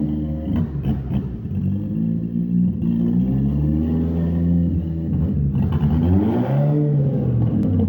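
Fiat Strada pickup's engine and exhaust with a deep rumble, revved twice: the pitch climbs and falls back a few seconds in, then climbs and falls again near the end.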